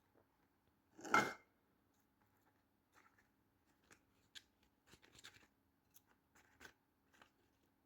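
Hands pressing and packing potting mix around cuttings in a small planter: a louder scrape about a second in, then a string of soft, short crunches and scratches.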